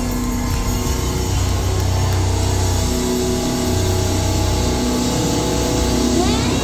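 Metalcore band playing live and loud: electric bass and guitars hold heavy sustained notes over a dense low end, with a quick rising pitch sweep near the end.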